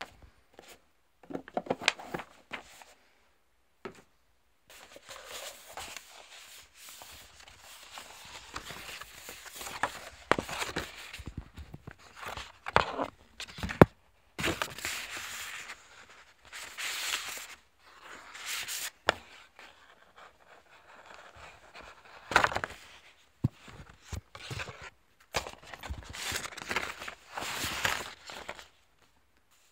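Handling noise of a cardboard box and paper: irregular rustling and scraping with a few sharp knocks and clicks, broken by short pauses.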